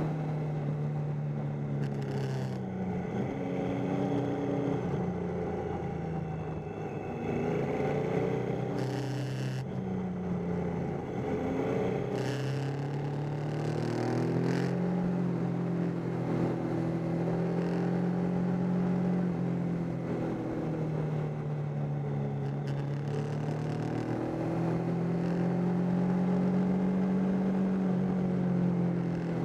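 Triumph Tiger 800's three-cylinder engine running hard through a string of bends, its pitch rising and falling again and again as the throttle opens and closes, over steady road and wind rush, with a few brief gusts.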